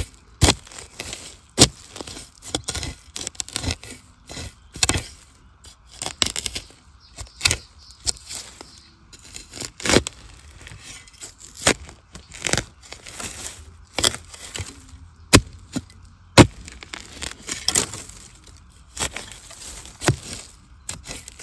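Sharp, irregular cracks and snaps of bamboo being broken, about one or two a second, with softer crackling between.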